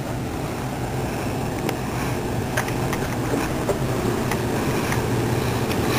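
Steady low hum and rumble, with a few light clicks scattered through.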